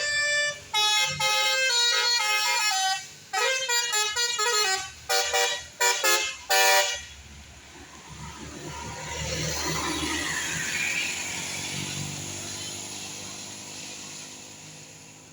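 A bus's telolet horn, a multi-tone musical horn, plays a quick run of short toots of changing pitch for about seven seconds and then cuts off. The bus then passes by, its engine and tyre noise rising to a peak and fading away.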